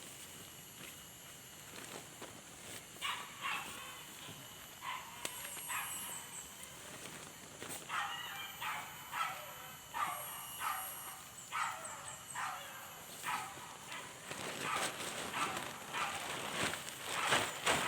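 An animal calling in a series of short, repeated calls, roughly one a second, starting a few seconds in and coming faster near the end.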